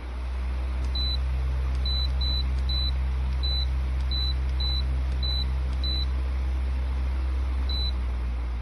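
Pelonis 16-inch pedestal fan running with a steady low hum of moving air, swelling up in the first half second. Its control unit gives short high beeps, nine in quick succession and then one more near the end.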